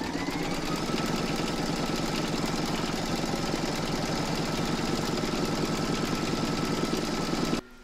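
Embroidery machine stitching a tack-down outline through fabric and batting in the hoop: rapid, even needle strokes over a motor whine that rises as it speeds up in the first second, then cuts off suddenly near the end.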